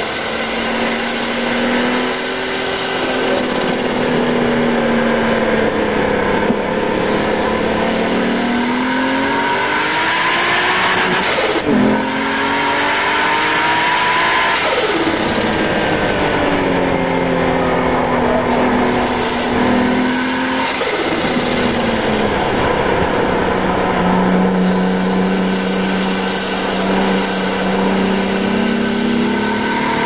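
Nissan R32 Skyline's turbocharged RB20DET straight-six at racing speed, its revs rising and falling through corners and straights. There are two sudden drops in pitch, about a third of the way in and again about halfway, typical of quick gear changes.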